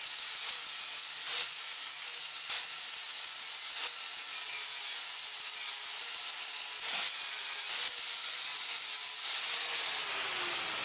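Angle grinder with a flat sanding disc running against the sheet steel of a car's engine bay, smoothing down the stubs of cut-off ABS brackets: a steady sanding hiss, with a falling tone near the end.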